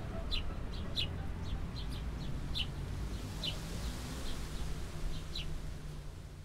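Small birds chirping in short, high calls, irregularly and several a second, over a steady low background rumble; all of it fades out near the end.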